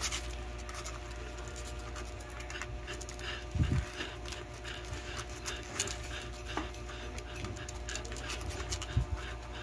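Nursing mother dog panting while her puppies suckle, a sign of how hard nursing tires her. A dull low bump about three and a half seconds in.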